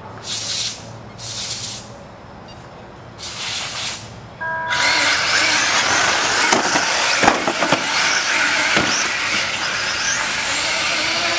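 A few short hissing bursts, then a brief electronic start tone about four and a half seconds in. The pack of 1/8-scale RC late model race cars then takes off, and their motors and tyres make a loud, continuous high-pitched rush as they lap the oval.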